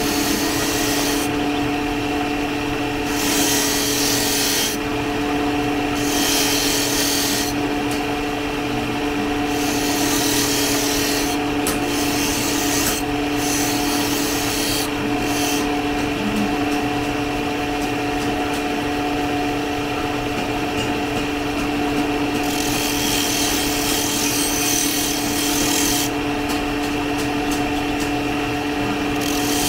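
Electric grinder running steadily while steel is ground on it in repeated passes. A gritty hiss comes and goes every few seconds as the work is pressed to the abrasive and lifted off, over the motor's steady hum.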